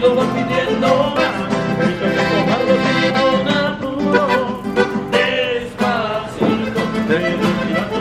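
Music: a band playing an upbeat tune on instruments, with a singing voice.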